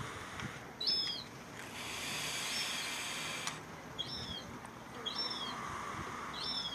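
A small bird calling: short, high chirps, each a pair of quick falling notes, repeated about four times, over a soft steady hiss.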